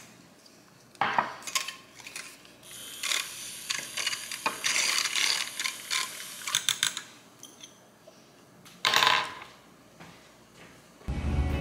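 A run of clicks, rattles and clatters of small hard objects being handled, densest in the middle, with a short louder clatter toward the end. Guitar music starts just before the end.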